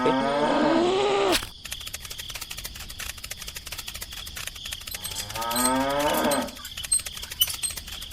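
A cow mooing twice, each call about a second long, over a fast, steady clicking.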